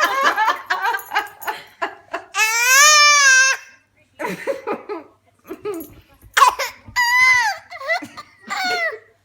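One-year-old toddler laughing in quick choppy bursts, broken by high-pitched squeals that slide down in pitch: a long one about two and a half seconds in, and shorter ones near seven and eight and a half seconds.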